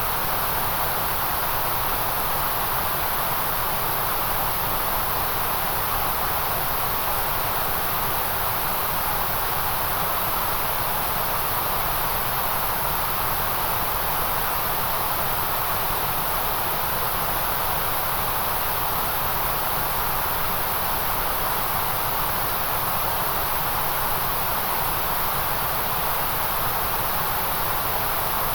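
Steady generated white noise: a constant, even hiss that never changes in level, with no distinct events.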